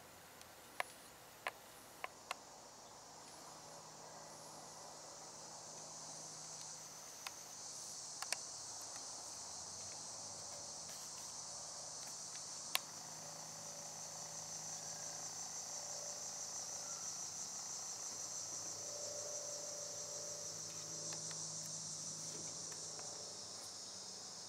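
A steady, high-pitched chorus of insects trilling, which swells about five seconds in and holds. A few sharp clicks stand out, mostly in the first couple of seconds.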